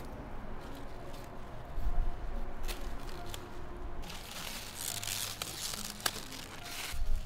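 Leaves rustling and stalks snapping as flowering bok choy stems are picked by hand, with a sharp snap about six seconds in. A couple of dull low thumps, around two seconds in and near the end.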